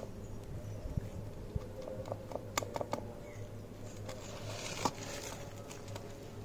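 Faint, scattered taps and scrapes of a cut lime being dabbed and pressed into chili powder and salt on a ceramic plate, over a low steady hum.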